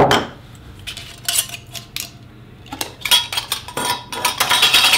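Glass mason jars with metal screw lids knocking and clinking as they are moved and set down on a wooden table: a sharp knock at the start, then bursts of clinks with a brief glassy ring about a second in, around three seconds, and through the last second.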